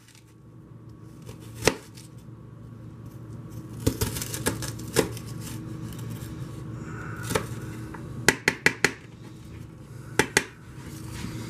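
Knife chopping onion slices into smaller pieces: scattered single strikes, then a quick run of four about eight seconds in and two more near the end.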